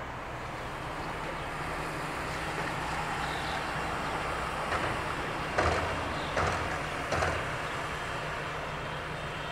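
Steady low engine drone with three short sharp knocks a little under a second apart about halfway through.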